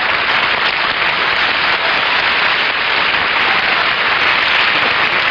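Studio audience applauding steadily: dense, even clapping from many hands.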